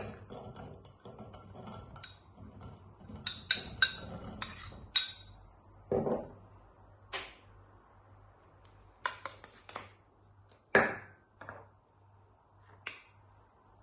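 Kitchen dishes and utensils clinking and knocking as ingredients are put into a blender: scattered sharp clinks, some with a short glassy ring, and a few duller knocks.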